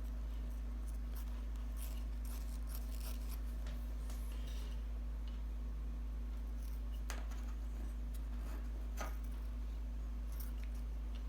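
Scissors cutting a dryer sheet to size, with faint scattered snips and rustles of the sheet. A steady low hum runs underneath.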